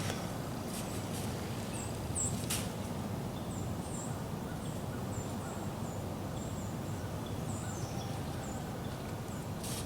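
Small birds giving short, high chirps every half second or so, over a steady low rushing noise. A single sharp tick about two and a half seconds in.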